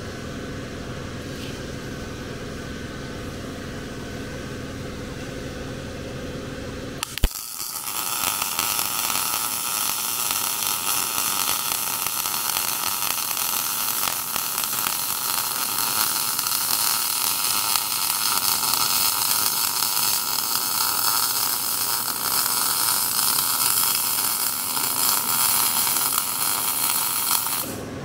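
MIG welder arc crackling steadily as a sleeve is welded into the eye of a dozer hydraulic cylinder rod. The crackle starts with a click about seven seconds in and cuts off near the end; before it there is only a steady low hum.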